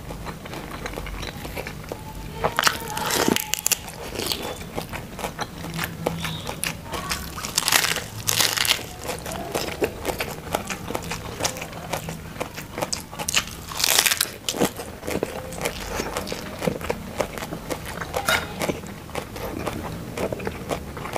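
A person chewing and biting food close to a clip-on microphone: a steady run of small wet mouth clicks, with a few louder crisp crunches as he bites raw lettuce.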